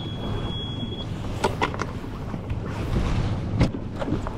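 Wind buffeting the microphone, with the rustle and handling of a life jacket being put on and a few sharp knocks, the loudest near the end.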